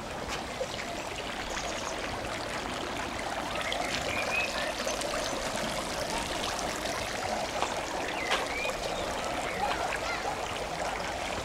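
Steady rush of running water at an outdoor pool, with a few faint high calls over it.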